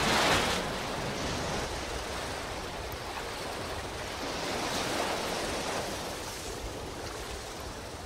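Storm surf on the Black Sea breaking over a concrete slipway: a wave crashes with spray at the start, then foaming water washes and hisses across the concrete. The surf swells again about five seconds in and fades near the end.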